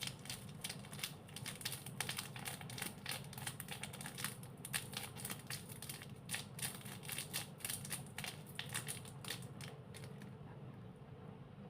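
Slime being squished and poked by hand, giving a quiet run of irregular small crackles and clicks that dies away near the end.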